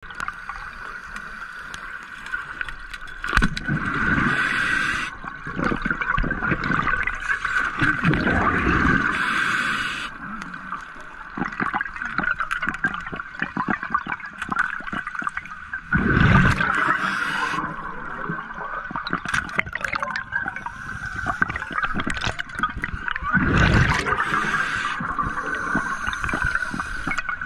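Underwater sound heard through a diver's camera: a steady water rush with a constant high hum, broken every several seconds by louder gurgling bursts of bubbles.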